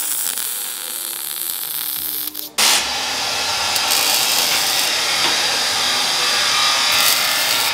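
Welding on steel exhaust pipe, a steady hiss and crackle. About two and a half seconds in the sound cuts suddenly to a louder, harsher steady hiss of torch or welding work on the pipe, which glows hot.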